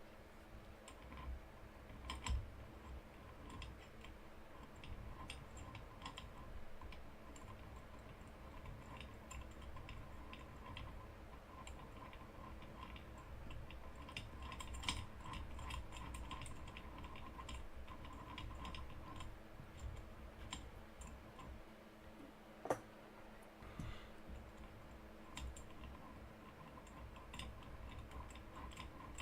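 Faint, irregular small clicks and taps over a steady low hum, with one sharper click about two-thirds of the way through.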